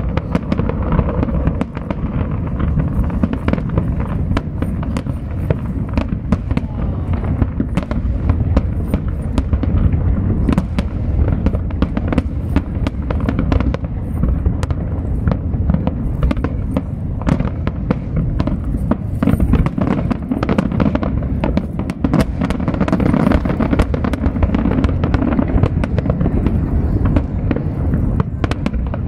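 Aerial fireworks display: a dense, continuous barrage of many rapid bangs and crackles over a steady low rumble.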